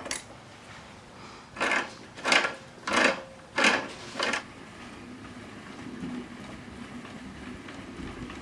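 A metal wrench working the nut and bolt that join the treadle rod to the crank of a foot-treadle sharpening stone. A sharp click at the start, then five short scraping metal strokes about two-thirds of a second apart.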